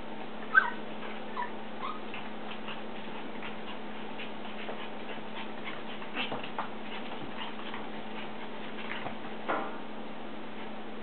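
Havana Silk Dog puppies at play. One gives a sharp high yip about half a second in, there are a few smaller squeaks, and a short whine comes near the end. Light irregular clicking runs underneath.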